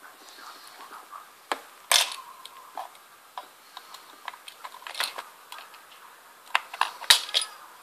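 Small screwdriver clicking and tapping against a plastic toy car and the tabletop in irregular, scattered strokes. Two sharper knocks stand out, about two seconds in and near the end.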